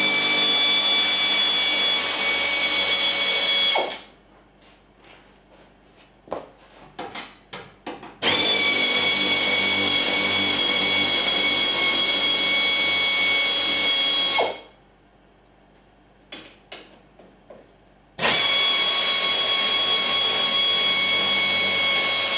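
Pneumatic air ratchet with a 14 mm socket running to back out bolts, a steady high whine in three long runs of several seconds each: one ending about four seconds in, one from about eight to fourteen seconds, and one from about eighteen seconds on. In the pauses between runs there are a few light clicks and taps.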